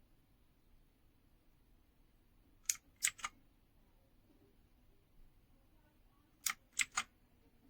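Clicky blue switches of a 60% mechanical keyboard being pressed: three sharp clicks in quick succession a little under three seconds in, and three more about six and a half seconds in.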